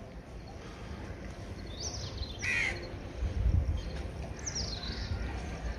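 Domestic geese calling from inside their coop: a few short, harsh honks about two seconds in and again near the end. A low thump comes in between.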